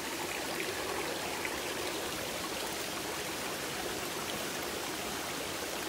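Small rocky hill stream running steadily over and between stones.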